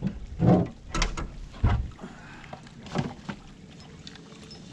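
A few hollow knocks and thumps in a small fishing boat, several heavy ones in the first two seconds and two lighter ones about three seconds in, then only a low steady background.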